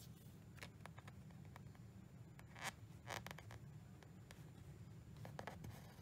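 Faint hand cross-stitching sounds: thread drawn through aida fabric in short scratchy swishes, the loudest about two and a half seconds in, among scattered small clicks of the needle going through the cloth.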